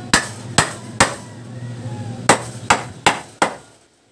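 Hammer pounding the lower end of a wooden stair handrail post: seven sharp blows, three quick ones at the start and four more after a short pause.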